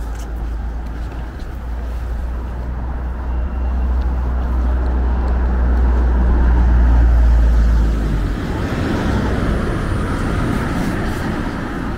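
City street traffic: vehicles passing, with a deep rumble that builds and then drops away about eight seconds in, leaving a broader noise of traffic.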